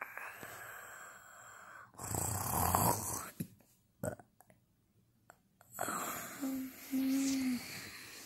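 A child snoring once, a rough breathy snore about two seconds in, then after a short silence two brief hummed moans near the end.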